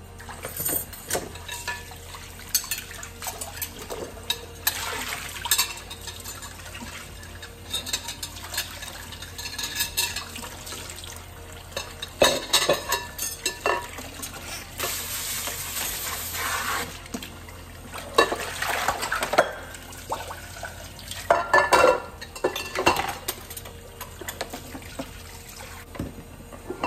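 Dishes being washed by hand at a farmhouse sink: tap water runs and splashes while a stainless saucepan, a plastic colander, spoons, a cutting board and a bowl knock and clatter against each other and the sink. The clatters come in irregular clusters over the steady rush of the water.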